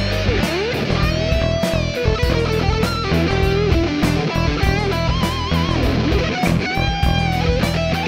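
Rock music soundtrack: a melodic electric guitar lead with bends and vibrato over steady drums.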